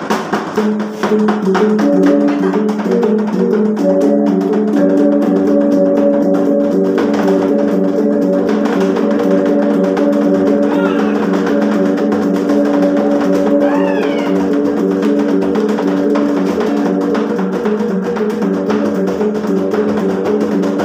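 Sumbanese gong-and-drum ensemble: several hanging gongs struck with padded beaters, ringing at different pitches in a fast interlocking repeating pattern over steady beats on small wooden hand drums. The drums start alone and the gongs join one after another over the first few seconds; twice near the middle a short high shout rises and falls over the music.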